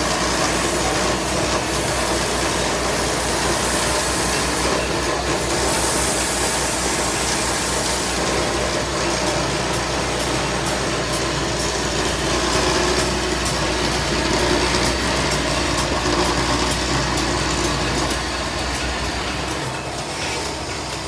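Wood lathe running steadily, spinning a turned wooden cot leg while a coloured lacquer stick is pressed against the turning wood. The low hum of the lathe drops out near the end.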